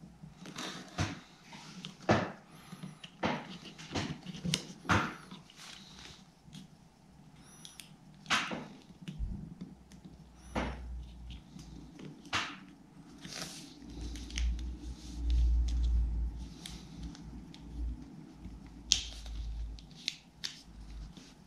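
Small plastic parts of a Revox B77 toggle switch clicking and rattling in the fingers as they are worked together, in irregular light clicks. A low rumble comes in for a few seconds past the middle.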